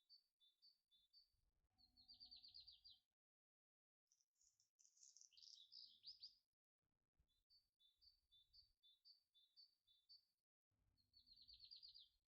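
Faint birdsong: short high chirps and quick trills that recur in a repeating pattern, like a looped nature-sound track, broken by a second of silence early on.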